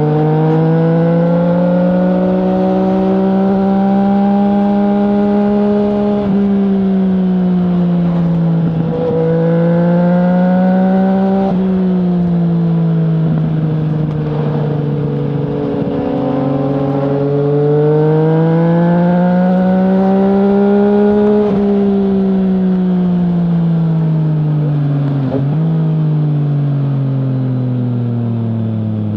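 2020 Yamaha MT-09's inline three-cylinder engine through an Akrapovic full-system exhaust with the dB killer removed, pulling under throttle. Its pitch rises and falls several times with brief dips along the way, then falls steadily as it eases off near the end.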